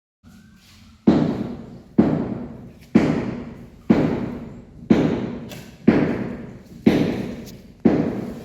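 Heavy thuds struck evenly about once a second, each ringing out and fading before the next.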